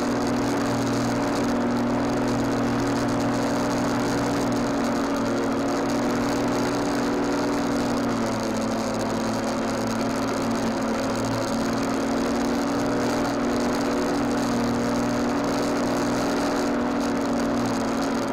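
Lawnmower running steadily while mowing, heard up close from on the mower itself; its pitch dips slightly about eight seconds in.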